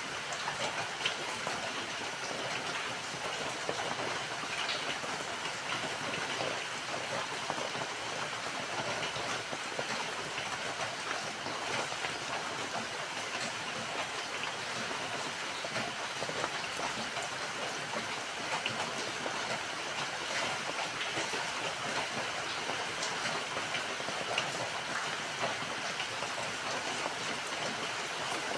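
Steady rain falling, an even hiss scattered with many small drop ticks.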